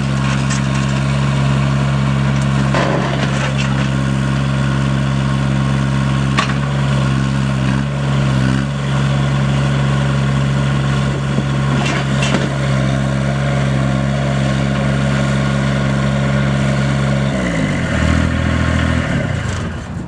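Terramite T9 loader backhoe's diesel engine idling steadily, with a few light knocks, then slowing sharply near the end.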